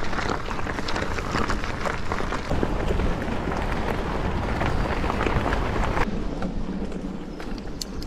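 Mountain bike riding over rough ground: tyre noise with many small clicks, rattles and knocks, which drops away suddenly about six seconds in.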